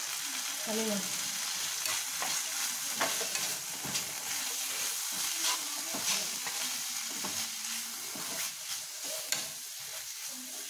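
Sliced green chillies sizzling in a pan as they are stirred, with a steady frying hiss and the spatula scraping and tapping against the pan now and then. The tamarind water has cooked off and ground mustard, fenugreek and asafoetida are being mixed into the chillies.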